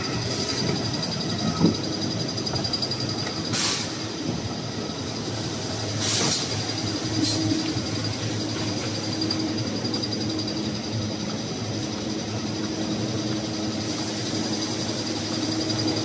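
Toilet paper and kitchen towel converting line running: a steady mechanical din from its rollers, belts and drives, with high steady tones over it and a few short hissing bursts about three and a half, six and seven seconds in.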